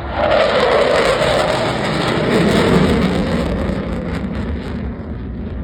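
Eurofighter Typhoon's twin Eurojet EJ200 jet engines roaring past in a flypast, starting suddenly and loud, with the pitch falling steadily as the jet goes by and the noise easing near the end.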